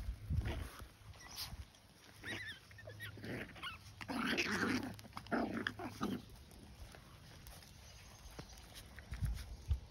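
Puppies play-fighting, making short irregular bursts of puppy growls and yips. The loudest burst comes about four seconds in and another follows a second later.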